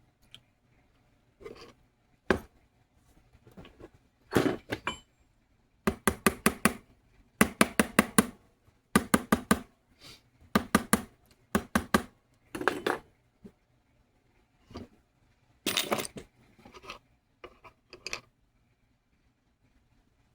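Light metal-on-metal taps in quick runs of about five to eight strikes, repeated in several bursts with short pauses, as of small metal tools striking metal at a jeweler's bench.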